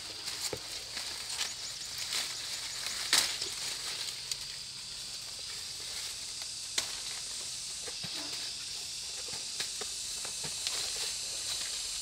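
Steady high-pitched drone of insects, with scattered light clicks, snaps and rustles of leaves and twigs. The sharpest snap comes about three seconds in.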